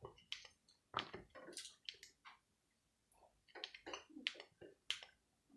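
Faint, irregular clicks of a Sharp GX29 flip phone's keypad buttons being pressed while scrolling through its menus. There are about fifteen clicks, the loudest about a second in, with a pause of about a second in the middle.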